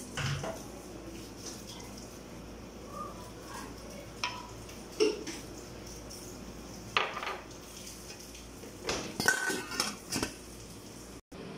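Scattered light clinks of a small glass cup and a stainless steel cooking pot as liquid is poured over rice, then a quick run of metallic clanks with a brief ring as the steel lid is set on the pot, about nine to ten seconds in.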